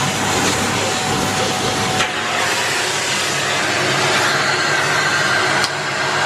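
Shark Anti Hair Wrap Lift-Away vacuum cleaner running steadily under suction, with a knock about two seconds in and another near the end, where its pitch shifts.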